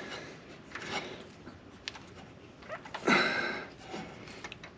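Hands handling a car's ABS wheel speed sensor cable and pressing it into plastic retaining clips in the wheel arch: scattered small clicks and rustling, with one louder, short squeaky scrape about three seconds in.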